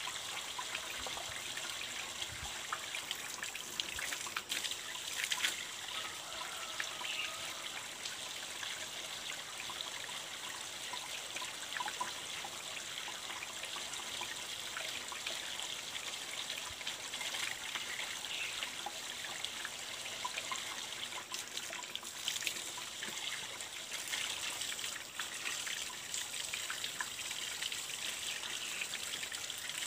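Water running steadily from an open PVC pipe and splashing as cloth diapers are hand-washed and wrung under it.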